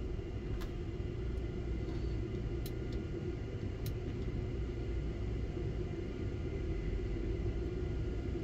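Tower crane hoist running steadily as it starts lifting a heavy load, heard inside the operator's cab: an even low rumble with a steady hum and a few faint ticks.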